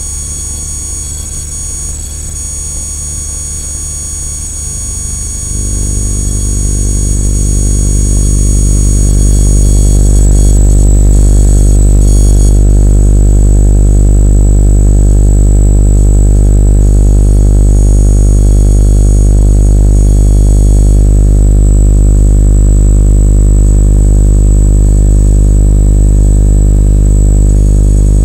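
Electromagnetic field detector turning electrical fields into sound: a steady electrical buzz made of many evenly spaced hum tones, with thin high whistling tones above. The low hum swells sharply about five seconds in and then holds loud.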